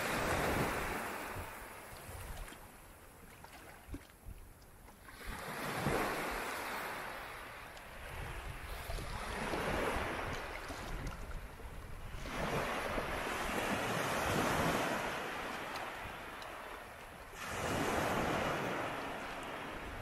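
Sea waves washing in, the surf swelling and falling back about every four seconds, five surges in all.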